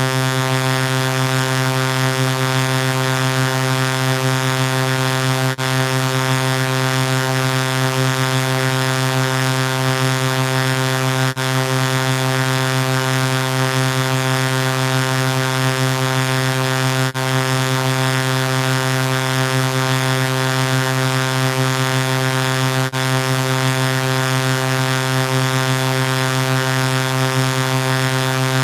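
Steady buzzy synthesized tone from Image-Line's Vocodex vocoder, a 'helium' effect: one unchanging low pitch with many overtones, with a brief click-like dropout about every six seconds as it loops.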